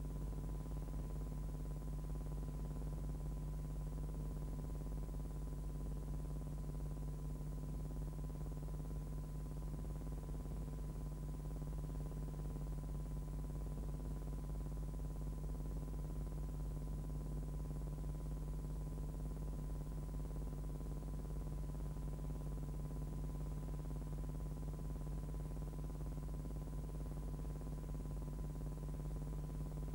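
Steady low electrical hum with a thin constant tone and hiss, unchanging throughout: no sound of the scene itself, only noise from the transfer of silent film.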